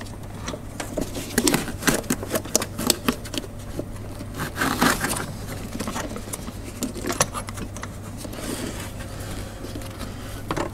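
Gloved hands fitting a rubber drive belt around the engine pulleys: irregular light clicks, scrapes and rustles of the belt and gloves against engine parts, over a steady low hum.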